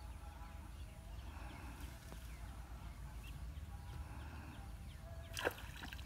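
A hooked fish splashing as it is yanked out of a small pond on a fishing pole: one short, sharp splash about five and a half seconds in, over faint outdoor background with a low rumble.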